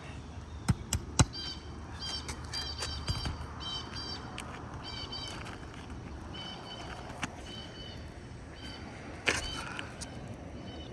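Knocks and scraping of hand work on an asphalt roof shingle being pried loose from a stuck nail: two sharp knocks about a second in, lighter irregular taps, and another knock near the end. Short high chirps repeat through the first half.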